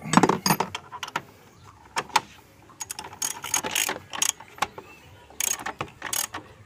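Metal socket wrench tightening the 12 mm bolt of a car battery's hold-down bracket, clicking and rattling in several short bouts until the bolt is tight.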